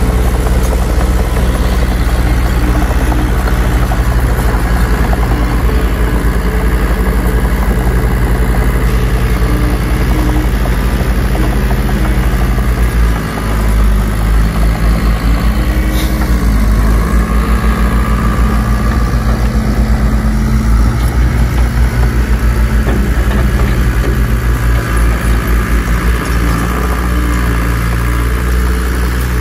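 Heavy diesel engine of earthmoving machinery running steadily under load. Its pitch sags and recovers briefly about halfway through, with one sharp click.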